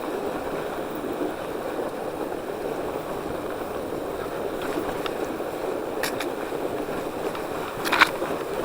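Norco Bigfoot 1S fat bike riding on packed snow: a steady rushing noise from the wide tyres on the trail, with a few sharp knocks from the bike, the loudest about eight seconds in.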